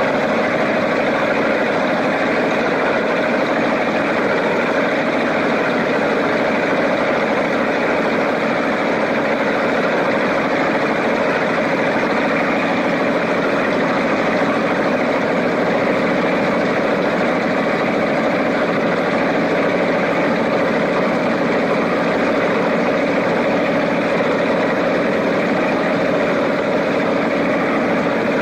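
Cigarette offshore powerboat's inboard engines idling steadily, with no change in pitch or speed.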